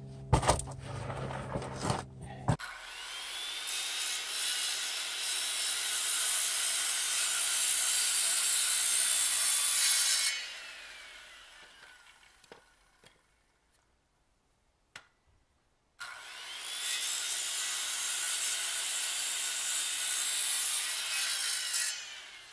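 Circular saw cutting through an old wooden post, twice. Each cut starts with the motor spinning up in a rising whine, runs for about six to seven seconds through the wood, and ends with a falling whine as the blade winds down; a few seconds of near quiet with a few clicks lie between the cuts. A few knocks come just before the first cut.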